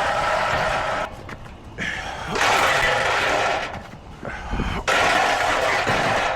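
Rooftop HVAC unit running with a loud, noisy whir, cutting in and out abruptly twice. The unit has smoke coming up from it and is loud enough to be heard from across the roof, a sign that something in it is failing.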